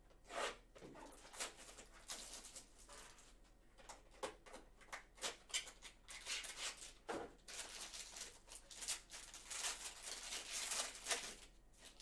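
A cardboard trading-card mini box being opened by hand and its cards slid out and handled. Rustling and scraping of cardboard and card stock with light clicks, in quick irregular bursts that are busiest in the second half.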